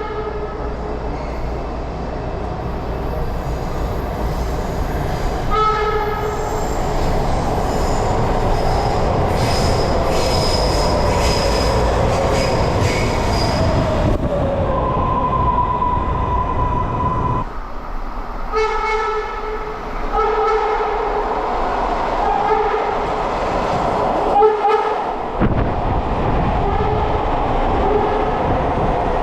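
Horn of a Hitachi-built MARTA CQ311 rapid-transit car, sounding a blast about six seconds in and then a quick series of about four short blasts later on, over the running noise of the train. Between the blasts there is a whine falling in pitch and a high wheel squeal.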